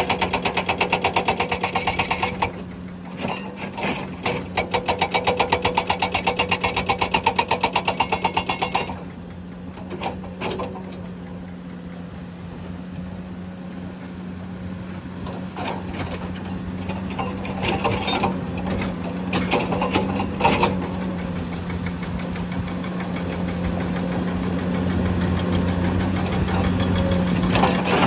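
Hydraulic breaker on a Komatsu PC200 excavator hammering rock in rapid, evenly spaced blows, in two runs with a short pause between, stopping about nine seconds in. After that the excavator's diesel engine runs steadily with occasional knocks, growing louder toward the end.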